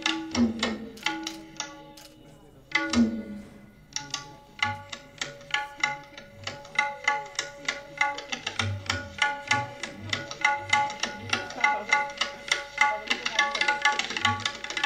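Tabla being played: ringing strokes on the small treble drum over deep bass strokes from the larger drum, some of which slide down in pitch. After a short lull about two seconds in, the rhythm picks up into a dense, quickening run that grows busier toward the end.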